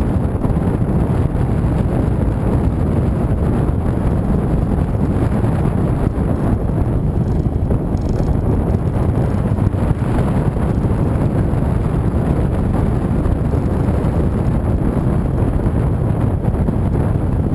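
Steady wind rush buffeting the microphone of a camera on a moving motorcycle, mixed with the motorcycle's engine running at cruising speed.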